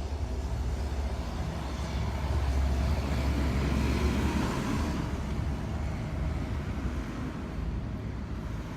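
Traffic noise: a steady low rumble, with a passing vehicle swelling from about two seconds in and fading after about five seconds.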